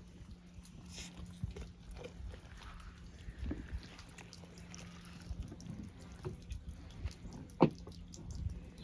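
Soft wet squelching and dripping as a hand pulls the innards out of a slaughtered chicken's body cavity during evisceration, with scattered small clicks and one sharp click near the end.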